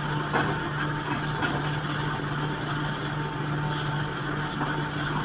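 Excavator engine running steadily at a constant pitch, with short high metallic squeaks and a few knocks from the working machine.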